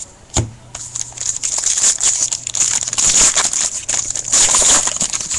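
Foil hockey card pack wrapper being torn open and crinkled by hand: a dense crackling from about a second in until near the end.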